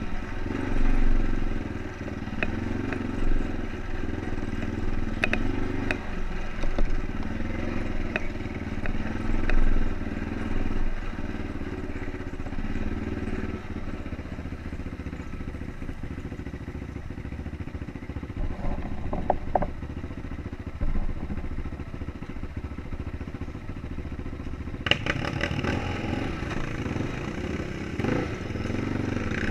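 ATV engine running steadily as the four-wheeler rides a bumpy dirt trail, with scattered knocks and rattles from the ride. Near the end the sound turns harsher and brighter.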